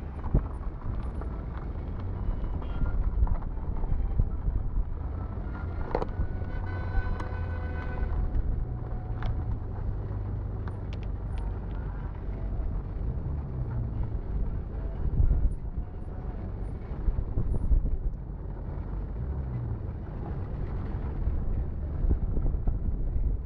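Steady low rumble of road traffic, with a vehicle horn sounding for about two seconds around six seconds in.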